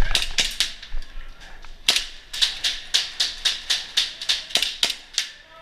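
Airsoft guns firing: sharp pops, a few scattered shots at first, then a steady run of about four shots a second from about two seconds in, stopping shortly before the end.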